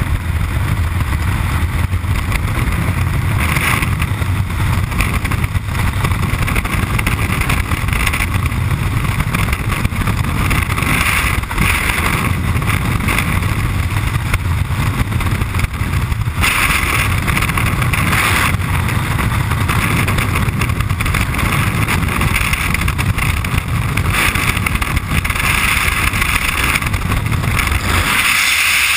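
Freefall wind rushing over a helmet-mounted camera's microphone: a loud, steady rumble and hiss. The low rumble drops away near the end.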